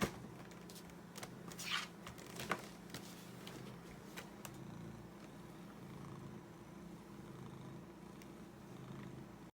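Domestic cat purring steadily, with a few short rustles and clicks in the first few seconds.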